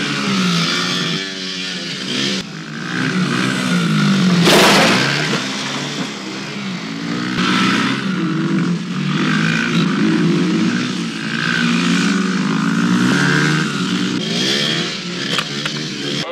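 Small dirt-bike engines revving up and down as they are ridden around, with a short, loud rush of noise about four and a half seconds in.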